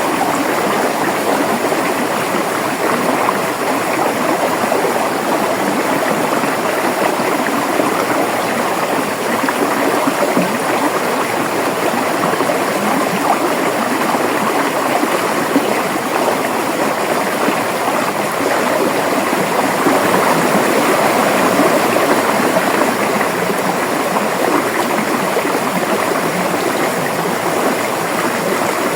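River water flowing and rushing over rocks, a steady, even babble without pauses.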